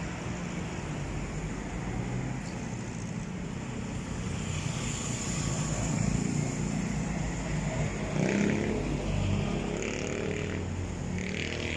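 Motor vehicle engine running steadily, with a slightly louder, shifting stretch about eight seconds in.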